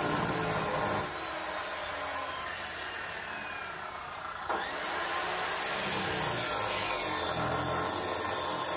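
Handheld cut-off wheel grinder cutting through the rusty sheet-steel rocker panel of a 1967 Chevrolet Impala, a steady loud grinding whine with a sudden jolt in the sound about four and a half seconds in.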